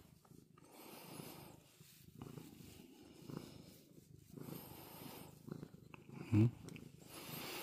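Calico cat purring softly, the purr swelling and fading with each breath. One brief low vocal sound comes about six seconds in.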